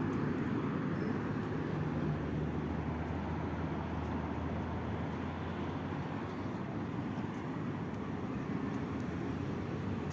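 Steady road traffic: cars driving past on a multi-lane city road, with a low engine hum that holds for the first few seconds and fades about halfway through.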